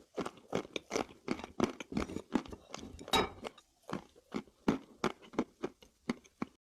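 Close-miked chewing of hard chalk or slate-pencil sticks: short, crisp crunches at roughly three a second as the mineral breaks up between the teeth.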